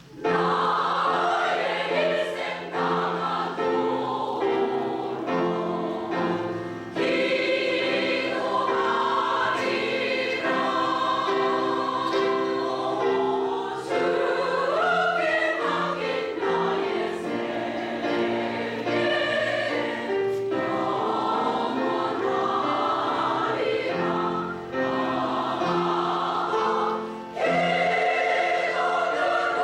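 Women's choir singing with piano accompaniment; the voices come in together just after the start over a soft piano passage and carry on through.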